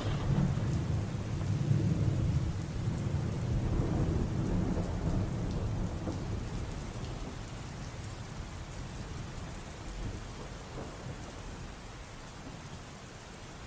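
Rain-and-thunder sound effect played through a hall's loudspeakers: steady rain with low rolling thunder. The thunder fades gradually over the second half.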